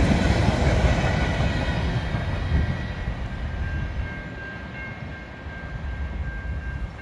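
Tail end of a freight train's tank cars rolling past, steel wheels rumbling on the rails. The sound fades steadily as the last car goes by and the train moves away.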